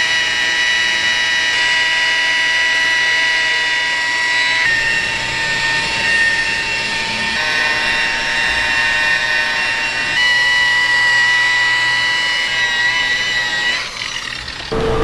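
A machine running with a steady high whine. The whine shifts abruptly about five, ten and fourteen seconds in.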